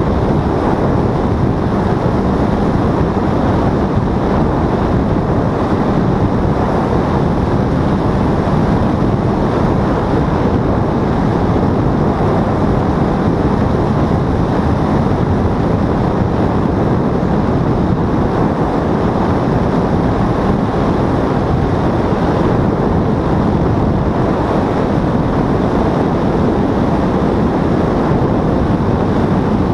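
Steady, loud rush of wind on the microphone in flight, mixed with a paramotor engine running at a constant throttle.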